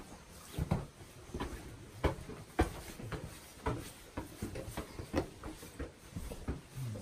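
Footsteps of several people walking down stone steps and a paved path: irregular knocks and scuffs, a few a second.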